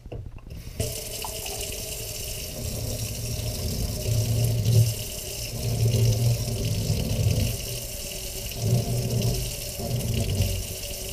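Kitchen faucet turned on and running warm water into a stainless steel sink, splashing over a spool of braided fishing line held in the stream. The water comes on suddenly just under a second in, and the splash swells and falls as the spool is held under it.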